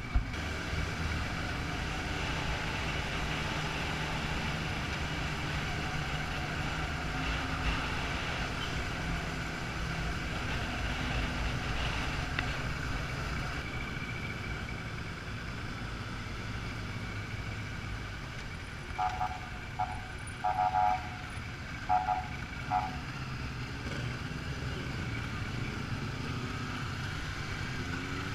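Motorcycle engine running steadily under way, with wind and road noise. About two-thirds of the way in, a horn sounds several short toots in quick succession.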